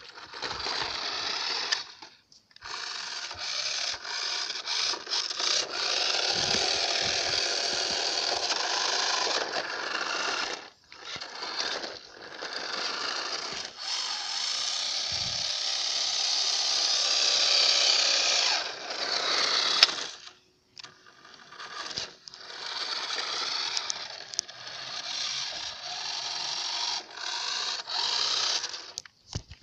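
Small electric motor and gears of a toy RC car whining as it drives over concrete, in runs of several seconds broken by short stops.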